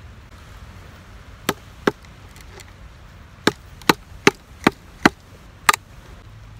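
Firewood being chopped: sharp strikes on wood, a pair and then a quicker run of six.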